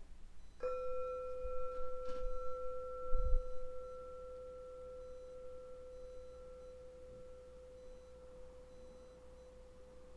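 A chime struck once about half a second in, ringing with one clear tone that slowly fades, with a soft low knock about three seconds in.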